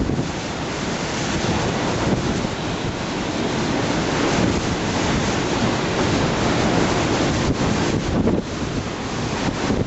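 Cyclone winds blowing hard, gusting against the microphone, with heavy rain.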